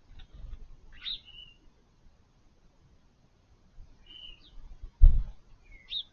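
Garden birds giving short, high chirps: a couple about a second in, more around four seconds in and again near the end. A dull low thump about five seconds in is the loudest sound, with a fainter one near the start.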